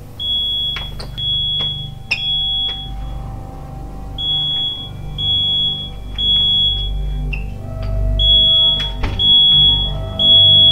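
A high-pitched fire alarm beeping in short repeated tones, about one to two a second with a pause a couple of seconds in, over a low rumbling music bed. A few sharp clicks cut through.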